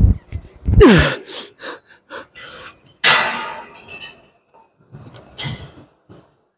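A man breathing hard and grunting while straining through seated cable rows: a falling groan about a second in, a loud exhale around three seconds, and short clinks from the cable machine in between.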